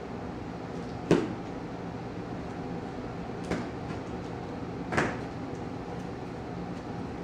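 Three sharp knocks on a cardboard shipping carton while its staples are pried out, the first about a second in and the loudest, then two more a couple of seconds apart, over a steady low hum.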